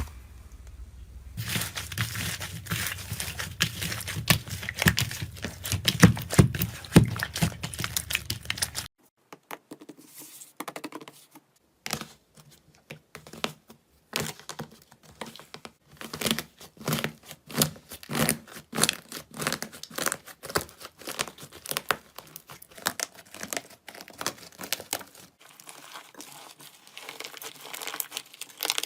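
Slime being squeezed and pressed by hand, making fast, dense crackling and popping. About nine seconds in the sound changes abruptly to a quieter run of separate sticky pops and clicks.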